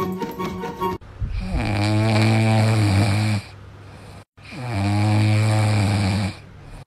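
French bulldog puppy snoring in its sleep: two long snores, each about two seconds, with a pause between them.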